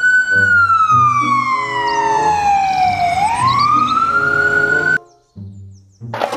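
Ambulance siren wailing: one slow fall in pitch followed by a quicker rise, then cutting off suddenly about five seconds in.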